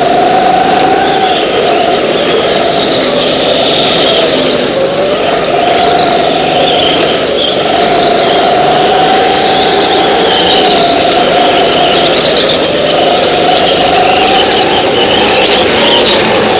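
Go-kart engine running hard at high revs, its pitch dipping briefly about three times as it slows for corners and then climbing back up.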